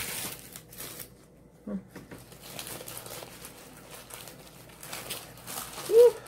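Paper food wrapper crinkling and rustling in several spells as it is unwrapped by hand. A short, loud vocal 'mm' sound comes near the end.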